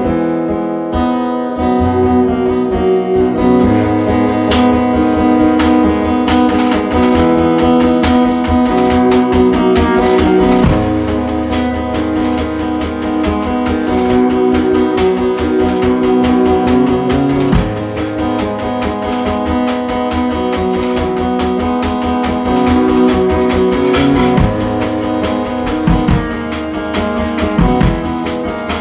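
A guitar strummed and picked in a live, informal jam, playing an ongoing groove; the strumming gets busier about six seconds in.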